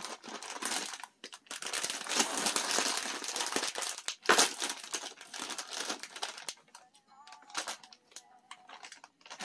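Plastic snack bag crinkling as it is pulled open and handled, with one louder sharp crackle about four seconds in; the crinkling dies down after about six and a half seconds.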